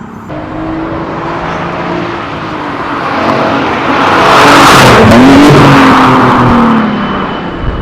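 Nissan 370Z Nismo's 3.7 L V6, through a Fast Intentions exhaust with high-flow cats, accelerating. The sound swells to its loudest about four to six seconds in, the engine note rising and then dropping away as the car goes by.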